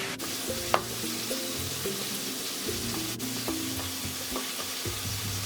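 Flour-coated snapper frying in hot oil, a steady sizzle, under background music, with one sharp tap about a second in.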